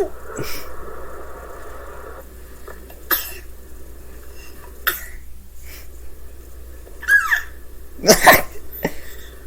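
A baby sneezing: several short sneezes a couple of seconds apart, the loudest about eight seconds in, with a short falling squeal just before it.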